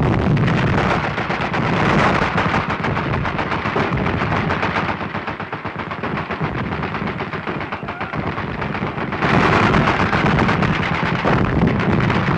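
Battle gunfire: dense, rapid machine-gun fire with many shots overlapping. It eases off a little in the middle and grows louder again near the end.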